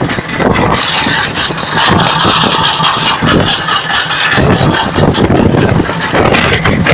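Boat engine running steadily, with wind buffeting the microphone and rattling.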